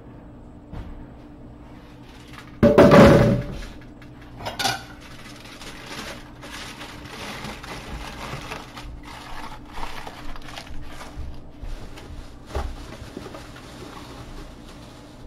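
Clatter of a metal sheet pan and crumpled aluminium foil being handled and set down in a stainless steel sink. One loud clatter about three seconds in, then lighter knocks and foil rustling.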